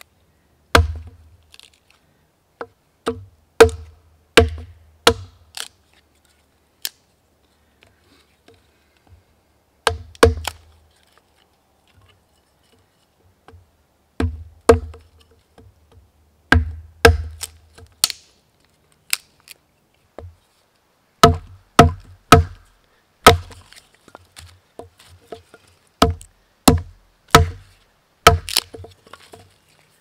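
Hatchet splitting short sticks of cedar into kindling against a log: sharp, ringing wooden knocks, about two dozen, in irregular groups of two to four with short pauses between.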